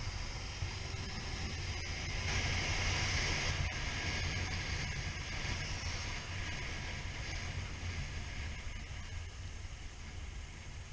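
Suzuki SV650 V-twin motorcycle riding, its engine a steady low rumble under wind and road rush. The rush grows louder for a couple of seconds about two seconds in.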